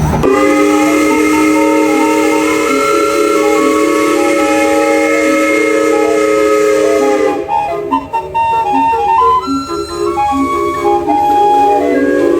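Steam whistle sounding a held chord of several pitches together for about seven seconds, then a string of short notes at changing pitches, then a held chord again near the end.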